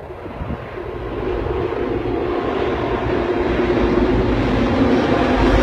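Diesel locomotives at the head of a heavy iron ore train, their engines droning and growing steadily louder as they come close and begin to pass.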